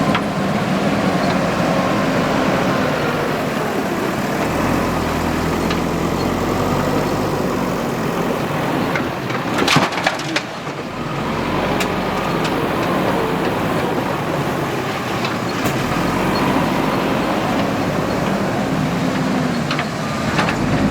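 JCB 3DX backhoe loader's diesel engine running under load, its pitch rising and falling as it works. About ten seconds in comes a cluster of sharp cracks and clanks, with a few single knocks later.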